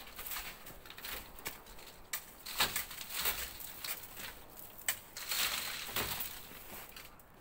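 Long metal pole jabbing and scraping at packed snow and ice on a roof edge: repeated sharp knocks and crunches as chunks break loose. About five seconds in, a longer hiss of loosened snow sliding off and falling.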